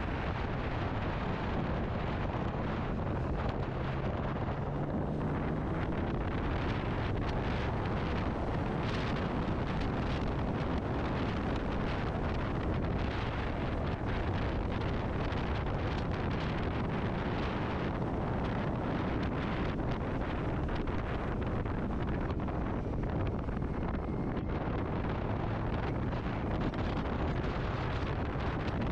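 Wind rushing over the microphone on a moving motorcycle, with the engine running steadily underneath, partly buried by the wind.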